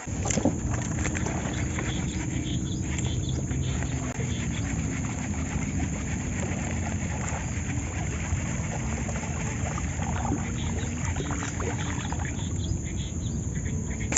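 Small boat's engine running steadily, a low continuous drone that cuts in suddenly at the start.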